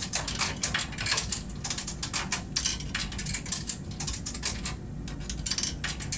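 Coins being fed into a BevMax 5800 vending machine's coin slot: a rapid, irregular run of small metallic clicks and clatters as they drop through the coin mechanism.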